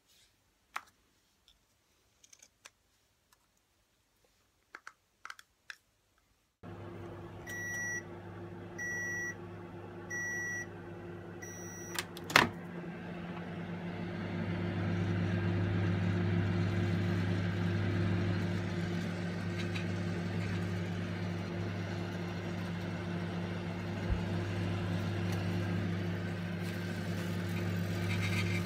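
Microwave oven being set and run: a few faint clicks, then the oven starts with a steady low hum about six seconds in. Four short beeps follow as it is set, and a single loud clunk comes about twelve seconds in, after which the oven hums steadily while heating the toast.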